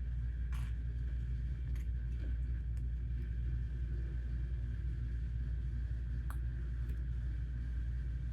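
A steady low hum, with a few light clicks scattered through it as plastic Lego bricks are handled and pressed together.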